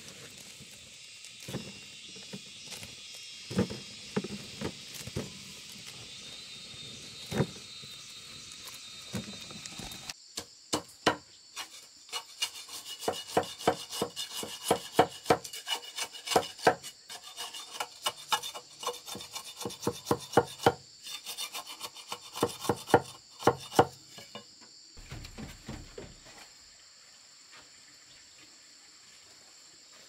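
Scattered light knocks of dried corn ears being handled over a steady high insect drone. About ten seconds in, a cleaver starts working sticks of wood, chopping and shaving kindling in quick, loud strokes for about fourteen seconds before it stops.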